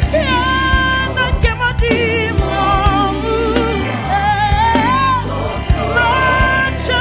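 Live South African gospel song: sung vocal lines with backing vocalists over a band of drums, electric guitar and keyboards, with a steady drum beat.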